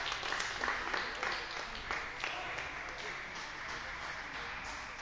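Sports-hall ambience: a murmur of indistinct voices, with sharp clicks of table tennis balls hit and bouncing on nearby tables, most of them in the first two seconds.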